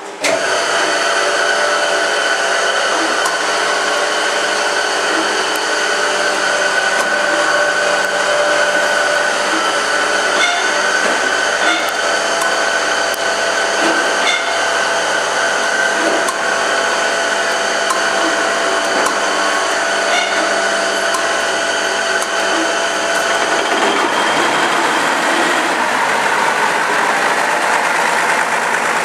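Deutz BF6M1015 V6 diesel being motored, unfired, by the electric drive of a run-in test stand: a steady mechanical whir with whining tones. About 24 s in, the low hum drops away and the sound turns harsher.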